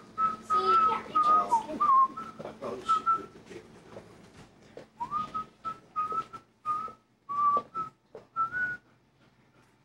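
A person whistling a short tune: a string of held notes at nearly one pitch with small steps and slides, then a pause of a second or two before a second phrase. Knocks and clicks of handling run under it.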